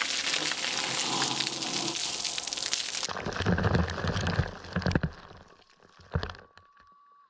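Water jet from a pump showering down onto gravel, heard as a loud, steady hiss like heavy rain. About three seconds in it breaks up into scattered drops and splats landing close by, which die away.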